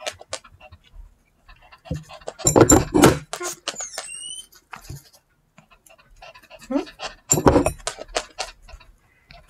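A dog whines: a short high whine rising in pitch about four seconds in, a begging whimper from a dog made to wait for food. Louder breathy, rustling bursts come twice, a little before the whine and near the end.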